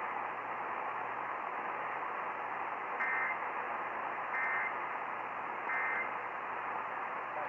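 Radio hiss with a low hum under it, broken by three short, identical bursts of Emergency Alert System data tones about 1.3 seconds apart: the end-of-message signal that closes a tornado warning broadcast.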